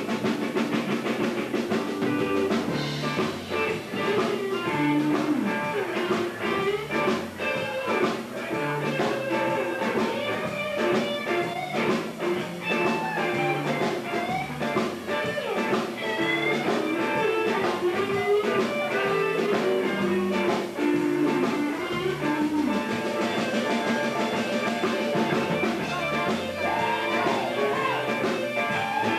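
Live blues band playing without vocals: an electric guitar lead with bent notes over bass guitar and a drum kit.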